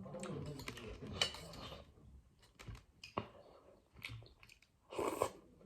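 Close-up eating sounds: chewing broccoli from a bowl of noodle soup, with a few short sharp clicks and a louder wet burst about five seconds in.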